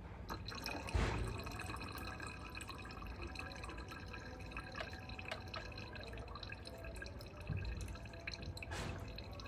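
Dirty oil draining from the drain-screw hole of an industrial sewing machine's oil reservoir, trickling and dripping steadily into a container below.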